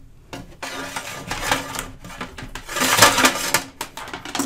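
Scraping and rustling of a radio cabinet being handled and shifted on a wooden workbench, with the power cord rubbing through the hole in its back panel and a few light knocks; loudest about three seconds in.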